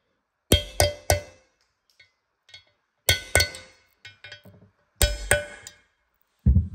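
Freeze plug being driven into an aluminium cylinder head by hammer blows on a socket held as a driver: sharp metallic taps with a short ring, in three quick groups of two or three about two seconds apart, and a dull knock near the end.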